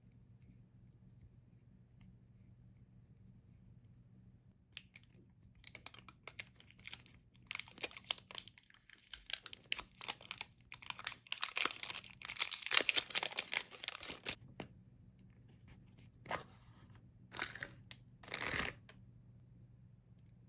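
Thin plastic shrink-wrap sleeve torn and peeled off a plastic surprise egg, crinkling and tearing in dense bursts for about ten seconds, starting about five seconds in. A few shorter crinkles follow near the end.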